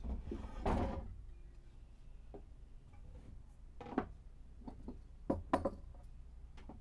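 Wood sliding and scraping across a table saw's metal top, then a handful of light knocks and clicks as a board is handled and set against the saw fence. The saw itself is not running.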